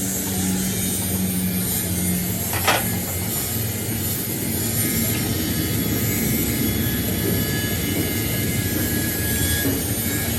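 Steady running noise of workshop machinery, with a low hum over the first couple of seconds and a single sharp knock of metal about two and a half seconds in.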